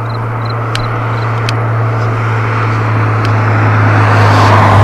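Road traffic: a car approaching, its tyre and engine noise growing steadily louder and peaking as it passes near the end, over a steady low hum.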